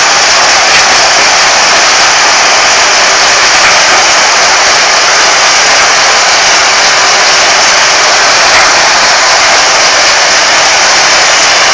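Sugarcane harvester running: a loud, steady, even mechanical noise with no pauses or changes.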